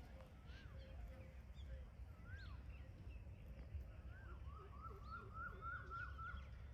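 Faint bird calls: short arched chirps, scattered at first, then a quick run of about three a second near the end. A low rumble runs underneath.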